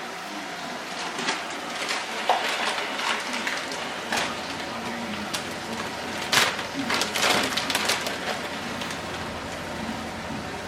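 Food sizzling steadily in a frying pan while a utensil scrapes and clinks against the pan at irregular moments, loudest a little past the middle.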